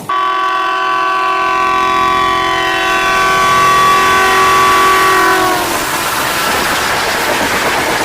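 Indian Railways locomotive horn sounding one long steady blast. Its pitch sags as it stops about five and a half seconds in, and the rushing noise of the passing train carries on after it.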